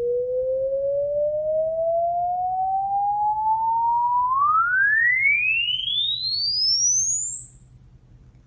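Audio test sweep: a single pure sine tone played back through a speaker, gliding steadily upward in pitch. It climbs slowly for about four seconds, then rises faster into a very high, thin whistle by the end.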